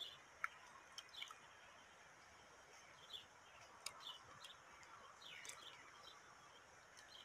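Faint, short high-pitched chirps, a dozen or so scattered at irregular moments, some sliding down in pitch, with a few small clicks over a steady low hiss.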